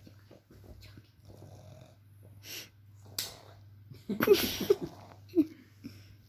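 Boston Terrier puppy breathing noisily through its short nose in a few separate snorting breaths, the loudest lasting most of a second about four seconds in.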